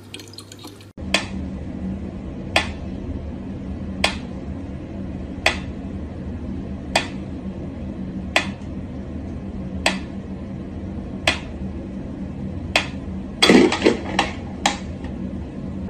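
Mechanical pendulum metronome ticking slowly and evenly, about one tick every one and a half seconds, over a steady low hum. Near the end a quick flurry of louder knocks and thumps breaks in.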